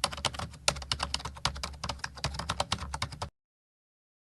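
A fast, irregular run of sharp clicks, several a second, that stops abruptly a little after three seconds in.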